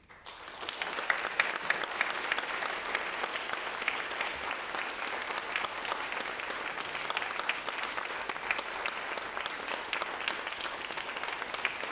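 Audience applauding: dense clapping that breaks out suddenly and then holds steady.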